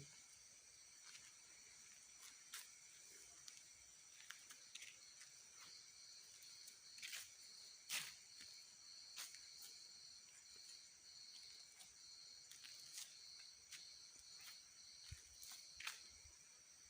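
Faint night chorus of crickets and other insects, with a pulsing chirp joining about five seconds in. Scattered sharp clicks cut through it, the loudest about eight seconds in.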